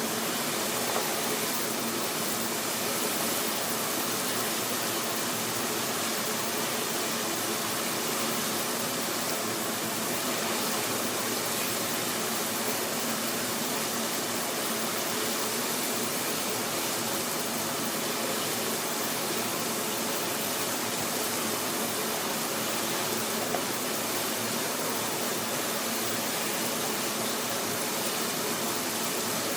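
Water boiling, a steady even rush of boiling noise that runs without a break.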